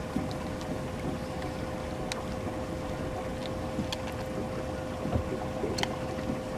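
Wind buffeting the microphone over a steady hum that holds one constant mid-pitched tone, with a few faint clicks spread through.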